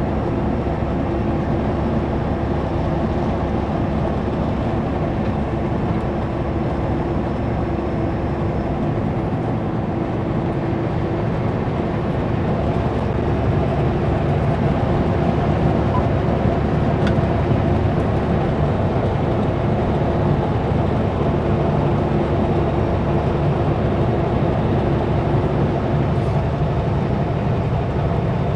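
Kenworth W900L semi-truck pulling a Super B trailer at highway speed: a steady engine drone with road noise, slightly louder in the second half.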